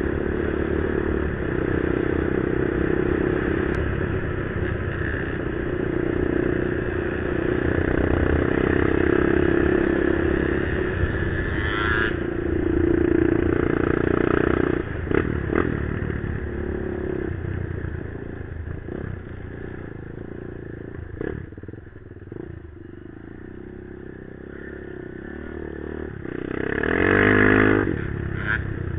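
Off-road engine running under throttle as it is ridden, a steady drone for the first half that eases off after about sixteen seconds, then revs up sharply and back down near the end.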